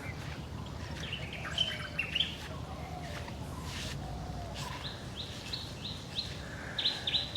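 Wild birds chirping: scattered high calls, then a run of short, high, falling notes repeated about three times a second in the second half. A low steady rumble runs underneath.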